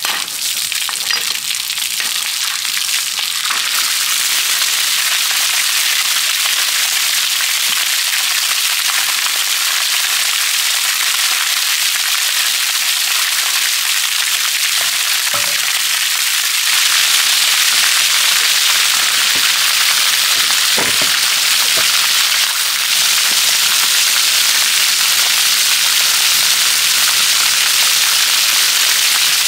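Water gushing out of the opened drain at the foot of a steam engine's boiler and spattering onto wet concrete, a steady loud hiss and splash: the boiler being drained down. It gets a little louder about halfway through.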